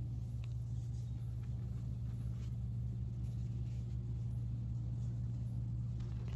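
A steady low motor hum with a faint regular pulse beneath it, holding level throughout, and a few faint ticks on top.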